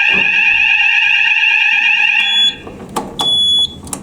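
Electronic fire alarm sounders set off from a manual call point during a system test: a loud, continuous high-pitched tone with a fast warble, which cuts off about two and a half seconds in. Then a short high beep, a click, a half-second beep and another click.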